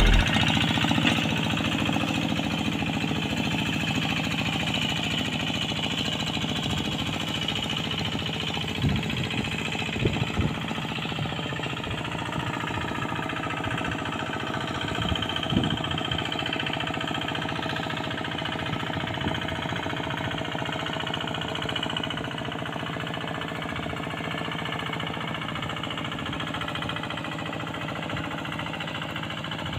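Single-cylinder diesel engine of a two-wheel hand tractor running steadily under load as it works a flooded, muddy rice paddy, growing gradually quieter as it moves away. A few brief thumps come about ten and fifteen seconds in.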